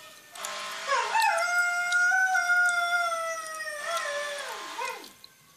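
A dog howling: one long howl that starts with a short rise in pitch, holds nearly level, then slides down and trails off near the end.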